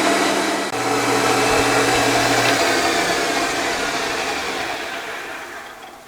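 CNC wood lathe running with a steady rushing, humming noise, then switched off and spinning down, fading away over the last couple of seconds.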